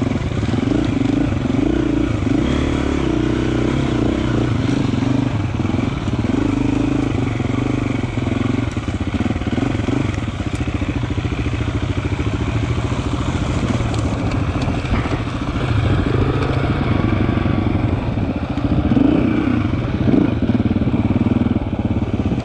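KTM Freeride enduro motorcycle engine running at trail speed on dirt, its pitch rising and falling as the throttle opens and closes.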